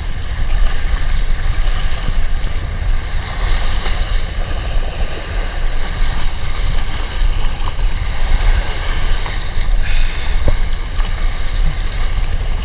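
Steady wind rumbling on the microphone, with sea waves washing against the breakwater.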